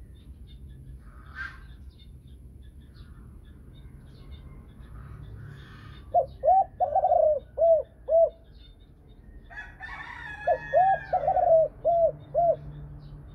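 Spotted dove of the pied 'Thai' type cooing: two phrases of about six short, rounded coos each, a couple of seconds apart. The call is of the 'thổ sấm' style that keepers prize, ending in clear trailing notes. A brief higher chirp comes just before the second phrase.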